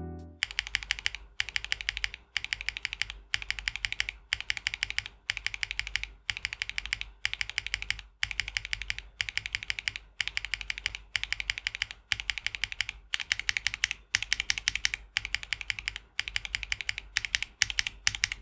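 Fast typing on a mechanical keyboard with HMX Blue Topaz switches: rapid key clacks in runs of about a second, separated by brief pauses.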